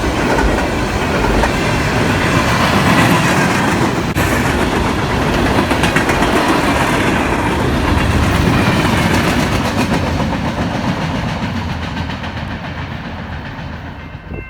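Mixed freight train's cars rolling past, a dense steady rumble of wheels on rail with no horn, fading away over the last few seconds as the train moves off.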